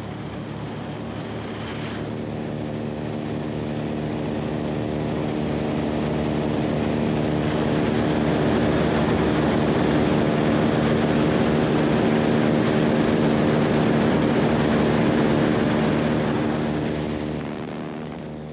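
Floatplane's propeller engine running at a steady cruise pitch, heard from inside the cabin. It swells in over the first several seconds, holds, and fades near the end.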